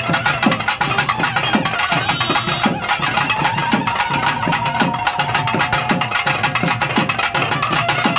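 Loud festival music driven by drums: a dense, fast drum pattern with deep strokes that drop in pitch about twice a second. A single long melodic note is held through the middle.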